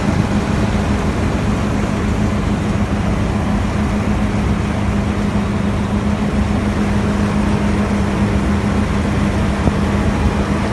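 Tractor-driven patoz (straw-making thresher) running steadily: a constant machine hum with an even rushing noise over it.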